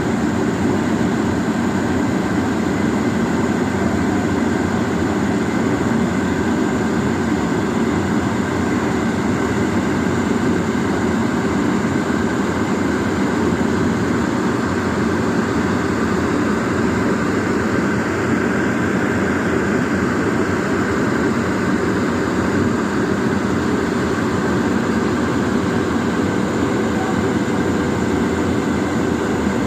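Excavator's diesel engine running steadily, a continuous loud drone with faint held whining tones.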